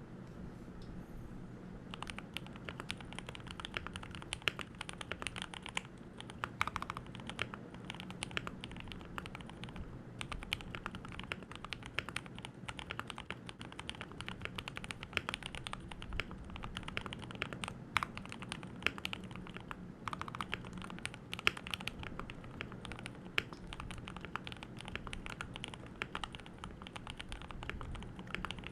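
Typing on a Keychron K2 V2 mechanical keyboard with lubed Gateron Milky Yellow Pro linear switches, stock keycaps and foam dampening. A few scattered keystrokes, then steady fast typing from about two seconds in.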